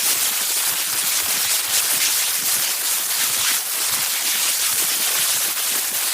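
Electric sparking sound effect: a loud, steady, dense crackle of sparks.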